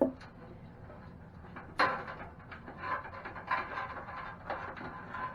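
Cables being handled and pushed through a PC case's cable-routing hole: a sharp knock at the start, a louder one about two seconds in, and irregular scraping and rustling.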